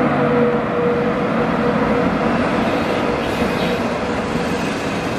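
SS8 electric locomotive and its 25T passenger coaches passing close at speed: a steady hum that fades out in the first couple of seconds as the locomotive goes by, over a continuous rumble of wheels on rail that eases slowly as the coaches roll past.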